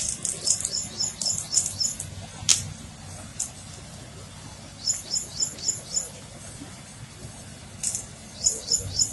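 A small bird chirping in runs of short, high chirps, about five a second, coming in three bursts. A single sharp click sounds about two and a half seconds in, over a steady low rumble.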